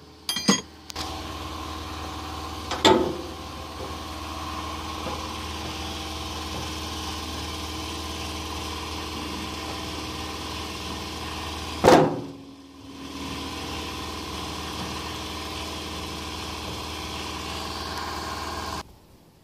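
An engine running steadily at idle, with a metallic clank about three seconds in and another, louder one about twelve seconds in. It cuts off abruptly near the end.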